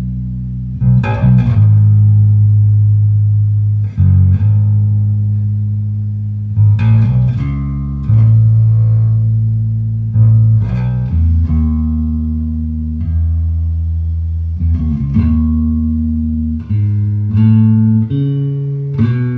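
Bass guitar with flatwound strings, played solo: slow plucked notes and chords improvised in A Lydian, each left to ring for a second or more before the next, climbing higher near the end.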